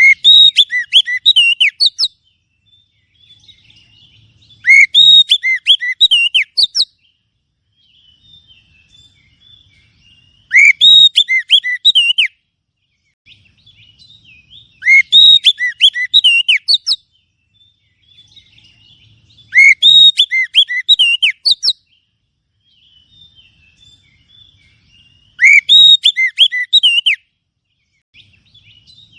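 Oriental magpie-robin (kacer) song played as a lure call to draw in wild magpie-robins: loud phrases of quick, clear whistled notes, each about two seconds long, repeated about every five seconds, with faint soft chatter in the gaps.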